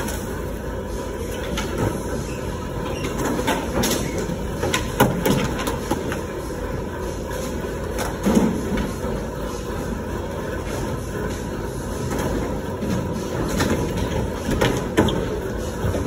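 Skatepark din: skateboard wheels rolling on concrete and wooden ramps, with a few sharp clacks and slaps of boards hitting the ground, the loudest about five and eight seconds in.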